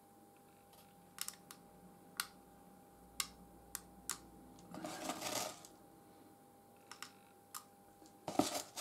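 Small lumps of crushed real coal clicking as they are sprinkled and pressed into a model locomotive tender's glued coal space: scattered light clicks, with a brief rustle about five seconds in and again near the end.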